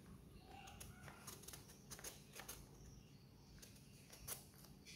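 Faint, scattered little ticks and scrapes of a knife cutting into a peeled mango, with one slightly louder click about four seconds in.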